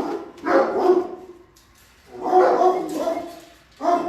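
Kennelled shelter dogs barking: three drawn-out barks, each under a second long, with short pauses between.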